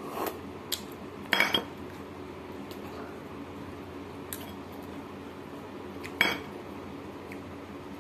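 Stainless steel dishes clinking: a cluster of short metallic clinks about a second and a half in and another about six seconds in.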